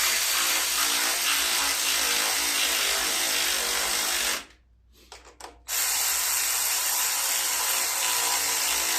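Power drill running bolts in, two long steady runs with a short pause between them, tightening two bolts on a riding mower's engine shroud.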